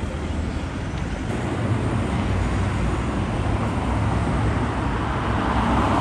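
Car traffic on a city street: steady engine and tyre noise, with a car coming close and its sound swelling near the end.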